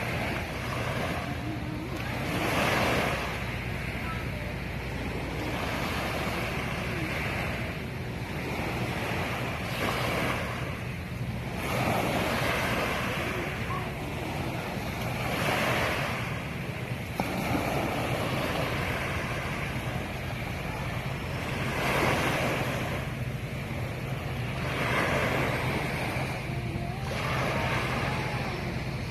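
Sea waves washing in, swelling and falling back every few seconds, over a steady low hum.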